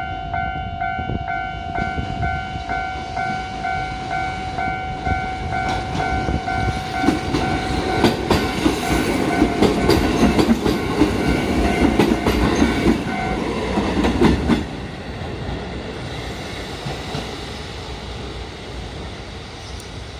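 Japanese level-crossing warning bell ringing in rapid repeated dings while a train passes through the crossing, its wheels clattering over the rail joints. The train is loudest from about 7 to 14 seconds in. The bell stops about 13 seconds in and the train noise drops off soon after.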